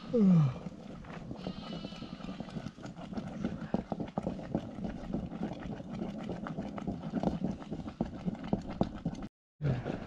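Sheep bleating: one loud call falling in pitch at the start, a fainter call about two seconds in and another short one near the end, over a steady background of small clicks and shuffling from the flock. The sound cuts out for a moment near the end.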